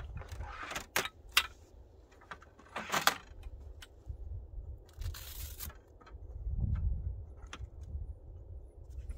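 Folding aluminium camping table being set up by hand: a few sharp metal clicks and knocks as the frame and legs are handled and snapped open, and a brief clattering rattle about five seconds in.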